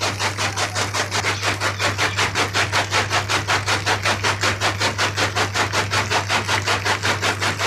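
A farm machine running steadily, beating about six or seven times a second over a constant low hum.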